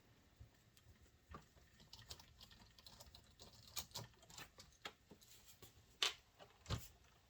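Faint, scattered light clicks and taps of small parts being handled while a front wheel is changed on a scale RC crawler, with two sharper clicks about six and seven seconds in.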